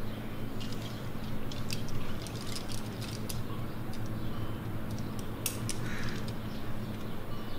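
Climbing gear on a climber's harness, quickdraws and carabiners, clinking in a scatter of light metallic clicks as he moves, over a steady low hum. A bird calls once near the end.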